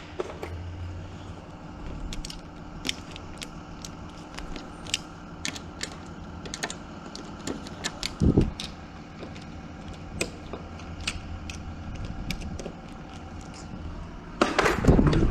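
Scattered light metallic clicks and taps from hand-tightening a door knob lockset's screws with a screwdriver, with one louder knock about eight seconds in, over a steady low hum.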